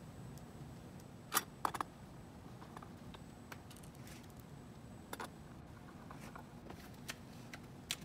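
A few sharp metallic clicks and taps as a screwdriver and small screws are handled against the metal back frame of an LED video wall module, over faint room tone. Two clicks come close together about a second and a half in, another near the middle, and one near the end.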